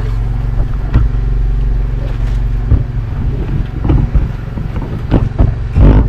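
A fishing boat's onboard engine running with a steady low drone. Over it come several knocks and thumps as crew handle fish and gear on the wooden deck, the loudest near the end.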